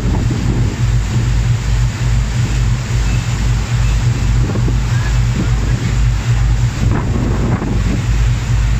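Passenger ferry under way, heard from the stern: a steady low engine drone under the rush of the churning wake, with wind buffeting the microphone.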